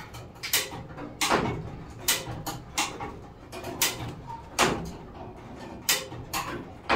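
Hand-operated hoist being worked to lift a car body off its frame: a series of sharp clacks at uneven spacing, a little over one a second, some ending in short falling squeaks.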